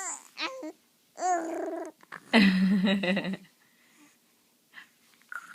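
A two-month-old baby cooing: three drawn-out, wavering vocal sounds in the first three and a half seconds, the last the loudest, followed by a couple of faint small sounds.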